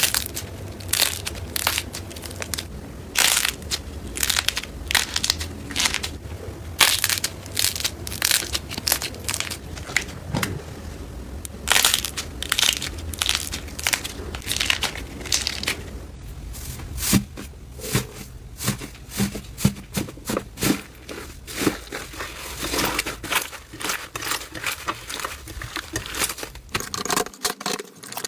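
Slime being squeezed and poked by hand, giving dense, irregular crackles and sharp popping clicks, several a second.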